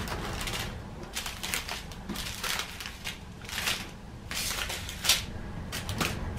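Small clear plastic bags of diamond painting drills being handled and shuffled, crinkling in a string of short bursts, the sharpest about five seconds in.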